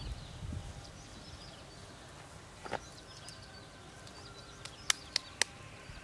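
Faint birds chirping in the background of a quiet outdoor scene. A soft knock comes about halfway through, then three sharp clicks or taps in quick succession near the end.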